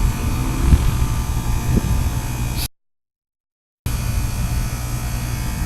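Goodman heat pump's outdoor unit running during a defrost cycle, a steady low hum and rumble. It cuts out to dead silence for about a second partway through, then comes back.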